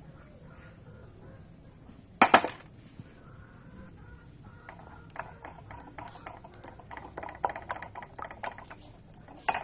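A spoon stirring an egg into rice-flour batter in a mixing bowl: one sharp knock about two seconds in, then a run of quick, light clicks as the spoon strikes the bowl's side, and another sharp click at the end.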